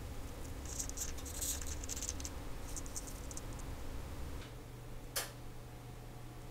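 Light, fine clicking and scratching from a Rolex watch movement and its small parts being handled at a watchmaker's bench, in two short clusters, then one sharper click about five seconds in, over a steady low hum.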